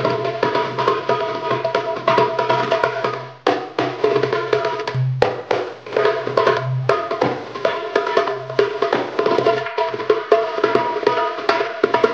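Egyptian-style darbuka with a synthetic head played in fast doum-and-tek strokes and rolls, over a dance music backing track with a steady bass line. The drumming drops away briefly about three and a half seconds in, then picks up again.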